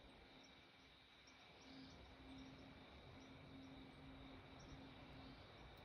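Near silence: faint crickets trilling steadily, with a faint low hum that comes and goes in short stretches.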